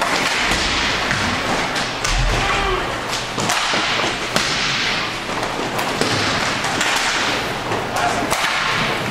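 Hockey play: a scraping hiss that swells and fades every second or two, with many sharp clacks and knocks of sticks and puck.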